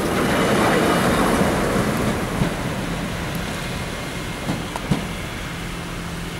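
Northern Ireland Railways Class 4000 diesel multiple unit running in on the rails. Its wheel and engine noise swells about half a second in and eases off as the train slows, with a few short knocks in the second half.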